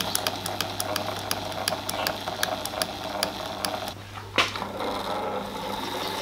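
Vintage Pfaff 230 sewing machine running slowly under its electric motor: a steady low motor hum with the mechanism clicking about five times a second. The machine is stiff and the motor gutless, which the owner traces to grubby electrical contacts. The clicking stops after about four seconds, followed by a single knock.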